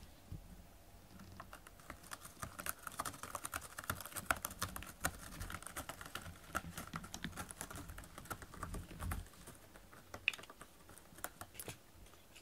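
A cat clawing a corrugated cardboard scratcher: a fast run of dry scratching strokes that starts about two seconds in and stops around nine or ten seconds in, followed by a few single scrapes.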